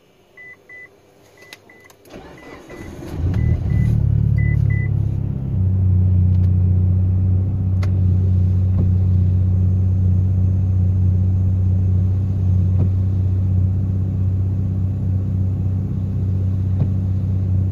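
Mitsubishi Lancer Evolution VIII's turbocharged 2.0-litre four-cylinder (4G63) is cranked by its starter and catches about three and a half seconds in. It runs at a raised speed briefly, then settles into a steady idle. Short high electronic beeps, in pairs, sound over the first few seconds.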